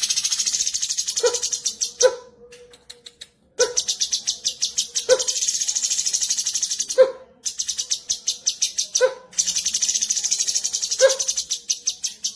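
Cucak cungkok singing its rapid-fire 'tembakan' song: long phrases of very fast, high-pitched rattling notes, each opened by a short lower note. The phrases repeat every couple of seconds with brief pauses between them.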